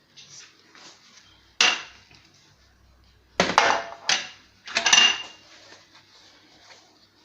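A baking tray clattering as it is handled and set down: four sharp clanks spread over a few seconds, two of them with a short ring.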